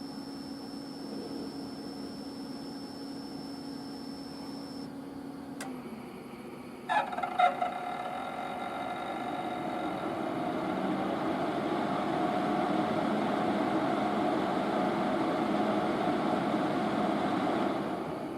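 VP-1000 appliance: a steady electrical hum with a high whine cuts off with a click, then a few sharp rattling clacks are followed by the fan starting up and running with a whirring hum that drops away near the end. The owner reports an abnormal noise from the unit just before the fan turns.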